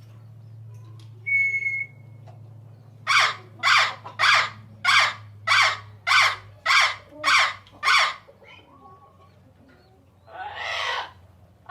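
Bird calls from a sound-effect library. A brief steady whistle is followed by a run of ten harsh squawks, nearly two a second, and one longer rasping call near the end.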